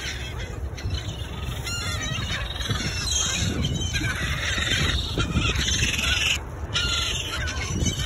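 A flock of gulls calling and squawking in many short overlapping cries, over a steady low rumble.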